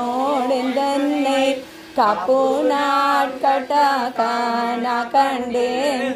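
Voices singing a Hindu devotional chant in a slow melodic line with held notes, breaking off briefly about two seconds in and then starting again with a rising note.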